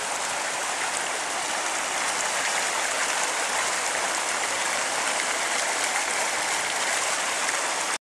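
Water pouring over a low concrete weir into a pool, a steady rushing hiss of falling and splashing water.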